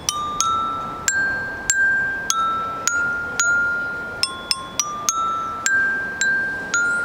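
Toy xylophone with coloured metal bars struck one note at a time with a mallet, picking out a slow, simple tune of about two notes a second, each note ringing and fading before the next.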